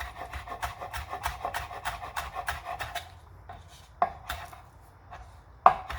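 Knife slicing a green onion (scallion) into thin slices. Quick, even strokes come about five a second for the first three seconds, then slow down, with two louder knocks near the end.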